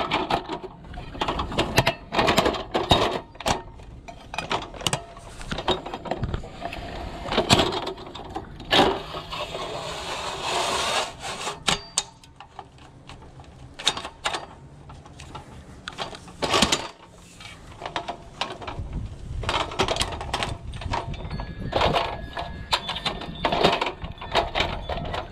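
Aluminium ladder being handled and set up: repeated sharp metallic clanks, knocks and rattles of the rails and rungs.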